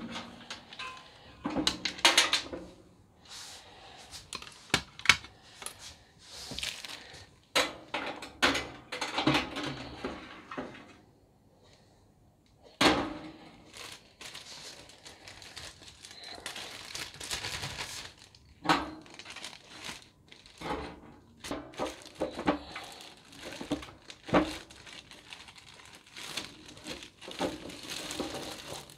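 A clear plastic bag crinkling and rustling as wooden pen blanks are handled and sealed into it, with scattered sharp knocks and clicks from the handling.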